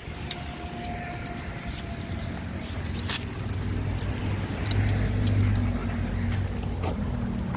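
A car engine running close by, a steady low hum that gets louder about halfway through, with scattered light clicks.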